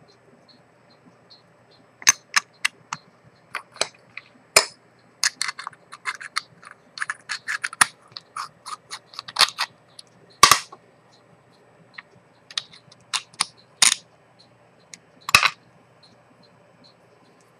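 Small metal watch parts and watchmaker's tools clicking and tapping on the bench during work on a vintage Rolex 6694 wristwatch. The clicks come irregularly, singly and in quick clusters, from about two seconds in until near the end, with a few louder knocks.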